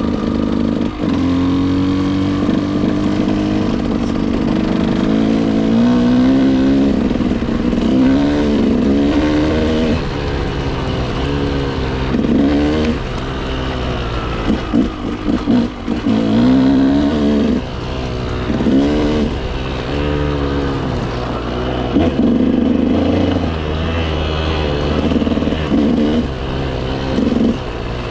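KTM motorcycle engine running under way, its pitch climbing and dropping again and again as the throttle opens and closes and the gears change.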